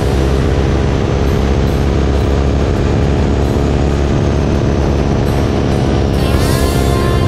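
Stearman biplane's radial engine running steadily in flight, with wind rushing past the wing-mounted microphone.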